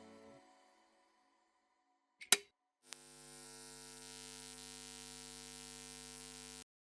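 Music fading out, then a single sharp click about two seconds in, followed by a steady hum that cuts off suddenly near the end.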